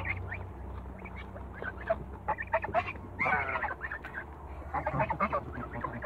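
Young African geese giving short honking calls while they feed, with one longer call about three seconds in and a quick run of calls near the end.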